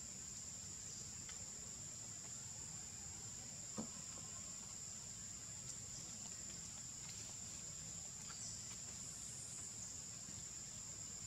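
Steady high-pitched drone of insects in forest, unbroken throughout, with a single short click about four seconds in.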